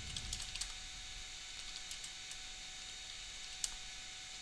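Computer keyboard typing: a quick run of keystrokes in the first second, then scattered single key clicks, over a faint steady hum.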